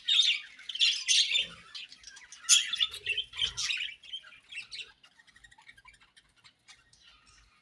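A colony of budgerigars chirping and squawking, many birds at once, busy for the first few seconds and then thinning to faint, scattered chirps from about five seconds in.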